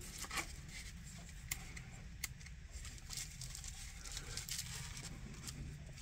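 Quiet steady low hum with a few scattered small clicks and rustles of the camera being handled.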